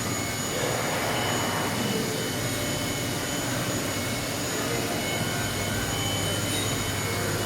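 CNC machine running in a workshop: a steady mechanical hum and hiss with constant high whining tones.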